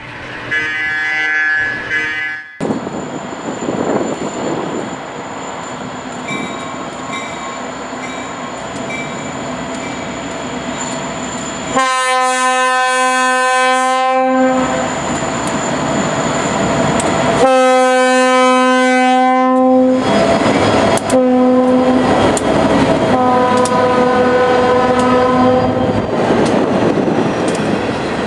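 Norfolk Southern diesel freight train approaching and passing, its lead locomotive's air horn sounding two long blasts, a short one and a final long one, the standard signal for a grade crossing. Under and after the horn, the locomotives' engines and the hopper cars' wheels rumble and clack on the rails.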